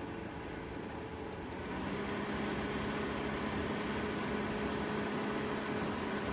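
Evaporative air cooler tower fan running with a steady whir. A short electronic beep about a second in is followed by the fan running louder, as on a speed step, and another short beep comes near the end.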